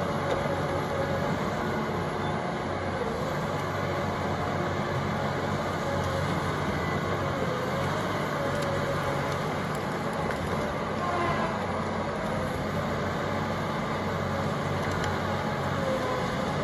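Diesel engine of an Eltec 277 tilt hoe chucker running steadily as the tracked machine works, with a wavering higher whine over the engine note.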